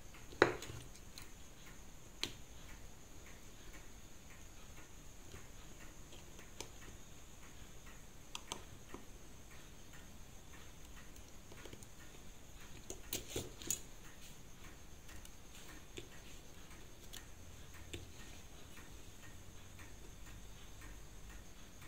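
Small, sparse metallic clicks and taps of steel tweezers and parts against a Seiko 5 automatic watch movement in its holder as it is taken apart, with a sharper click about half a second in and a quick cluster of clicks past the middle.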